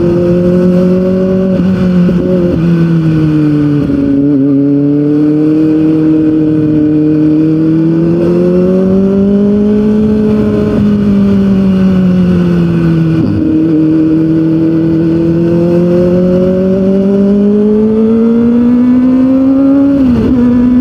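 Kawasaki ZX-25R's 250cc inline-four engine under way, its pitch rising and falling with the throttle. It shifts up from fourth to fifth gear partway through, the note dropping sharply, and dips again briefly near the end.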